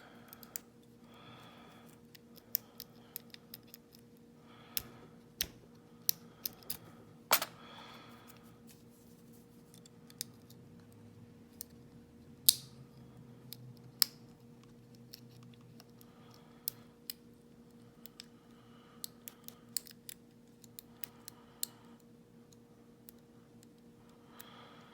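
Lock pick and tension wrench working the pins of an all-brass 40 mm Federal padlock that is sitting in a false set: irregular small metallic clicks and brief light scraping.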